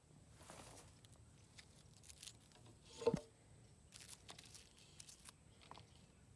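Faint rustles and small clicks of handling close to the microphone, with one brief louder sound about three seconds in.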